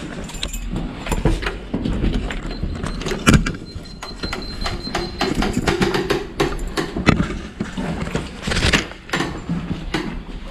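A door being handled and opened, with clicks and knocks, footsteps and the rustle of bags being carried. A sharp knock comes about three seconds in and another about seven seconds in, and a faint high steady tone sounds for a couple of seconds in the middle.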